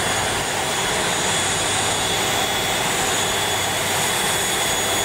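Steady jet-aircraft noise on an airport apron: an even rush with a thin, steady high-pitched whine that holds without change.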